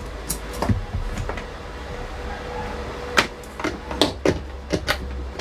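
Several short knocks and clicks of cables and equipment being handled and set down on a workbench, the loudest a little past three seconds in and at four seconds, over a steady low electrical hum.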